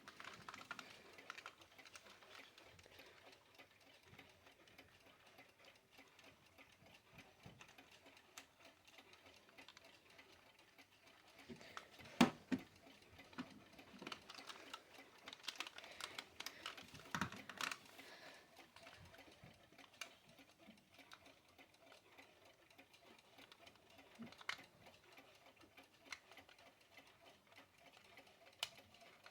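Faint, irregular small clicks and taps from a Westclox quartz travel alarm clock, with a louder knock about twelve seconds in and a cluster of knocks a few seconds later.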